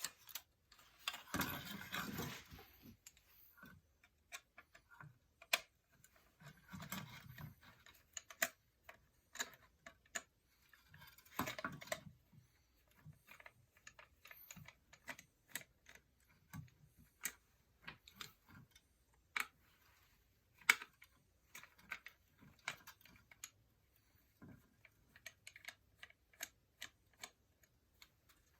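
Faint, irregular clicks and ticks of small hard parts being handled as a fire alarm is taken apart, with three short scraping rustles: a longer one in the first few seconds, then about seven seconds in and about twelve seconds in.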